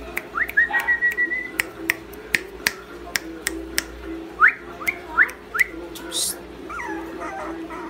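Quick sharp clicks and a held whistle about a second in, then a few short, high rising whistle-like chirps: noises used to call puppies' attention.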